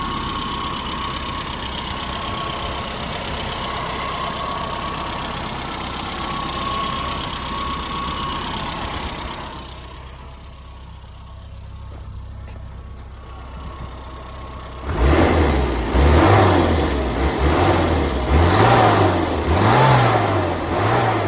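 A 1996 Rover Mini's 1.3-litre four-cylinder engine idling steadily for about the first half. After a quieter lull, a run of louder surges rises and falls in pitch near the end.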